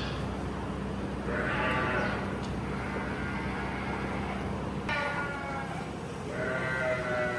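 Farm animals bleating, several wavering calls a second or two apart, the last near the end.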